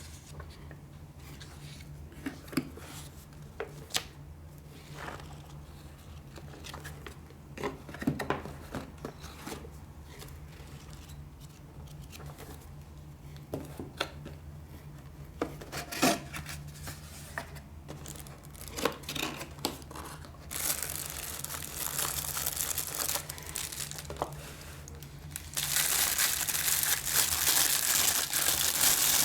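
Packaging being handled while a camera is unboxed: scattered clicks and small crinkles, then about twenty seconds in a loud stretch of crinkling and tearing, which comes back louder and continuous for the last few seconds. A steady low hum lies underneath.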